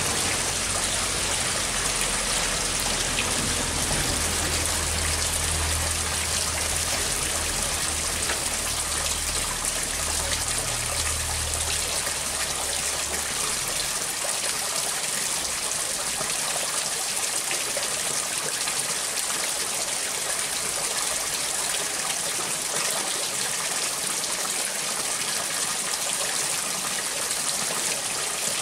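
Water pouring from a hose into a full plastic basin and overflowing its rim onto a board: steady splashing and running water. A low hum underneath stops about halfway through.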